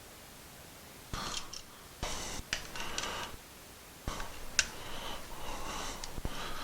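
Small metal clicks and scrapes of hand tools and stiff copper wire being worked onto the screw terminals of a wall light switch, in irregular short bouts.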